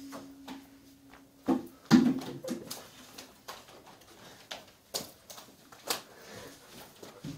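People scuffling and handling a leather jacket: a steady low hum at the start, a loud thump about two seconds in, then scattered knocks and rustling.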